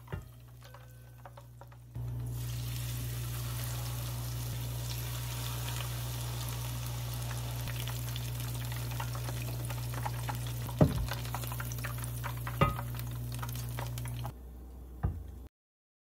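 Battered shrimp deep-frying in a pot of hot oil: a steady sizzle that starts suddenly about two seconds in and cuts off near the end, with a few sharp knocks on top of it.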